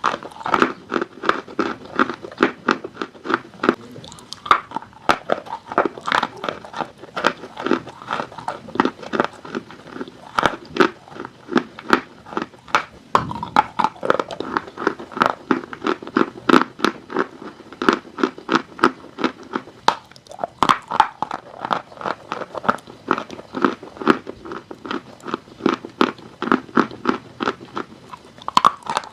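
Close-up crunching of dry chalk being bitten and chewed, a rapid run of sharp dry crunches, several a second.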